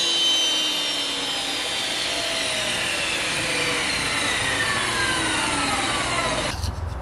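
Table saw motor and blade coasting down after being switched off, a whirring whine falling steadily in pitch over several seconds. The sound cuts off near the end.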